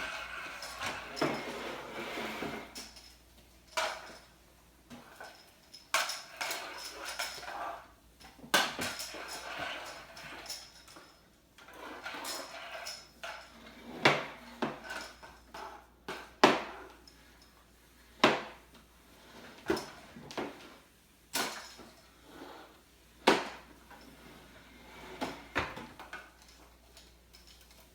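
Irregular knocks and clatters of hard objects, about fifteen sharp hits at uneven intervals, with a rougher rustling clatter in the first few seconds.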